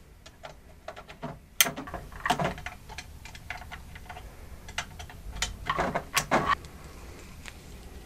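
Ethernet cable plugs clicking into the ports of a network switch and router, with knocks and rattles as the cables are handled in the rack: a series of short clicks and knocks, the sharpest about a second and a half in.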